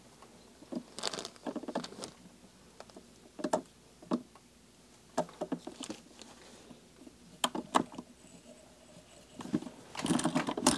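Light scattered clicks and ticks of hands working lead wire onto a hook held in a fly-tying vise. Near the end the rotating Nor-Vise's jaw is spun, setting off a quick, dense mechanical rattle.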